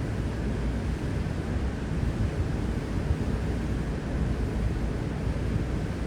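Steady low rumble of wind buffeting the microphone, mixed with water and boat noise out on the open water.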